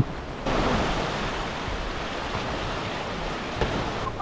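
Steady rush of fast-flowing water, starting abruptly about half a second in.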